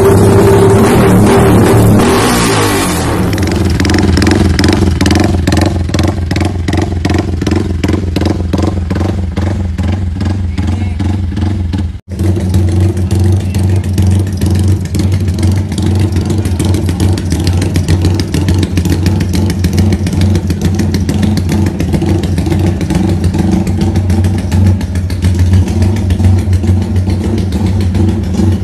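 Modified Yamaha Y15ZR (MX King) motorcycle on an aftermarket exhaust. A loud rev drops back over the first few seconds, then the engine settles into a lumpy 'rumble idle' with an even, pulsing beat. There is a brief abrupt break about twelve seconds in.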